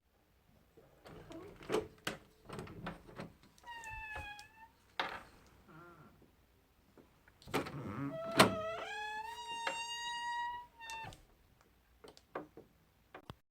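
Door handle and latch rattling and clicking, a short falling hinge squeak, then a long creak of door hinges rising slightly in pitch as the door swings, with a couple of knocks inside it.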